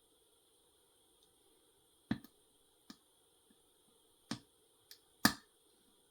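Lock pick and tension tool clicking in the keyway of a Schlage Primus Everest pin-tumbler lock while it is being picked: five sharp, irregularly spaced clicks, the loudest about two seconds in and near the end.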